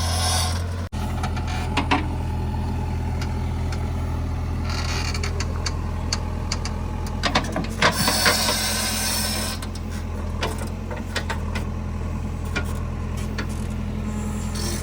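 JCB 3DX Eco Xcellence backhoe loader's diesel engine running steadily under work, with scattered clanks and knocks from the machine, and two short rushes of hiss, about five seconds in and again near eight to nine and a half seconds.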